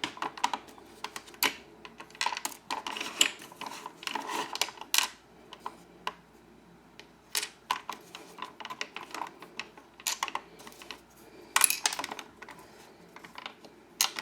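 Plastic toy casing and small screws clicking and clattering under the hands as the back plate of a Transformers G1 Blaster is fitted: irregular sharp taps and knocks, with a quieter pause about midway.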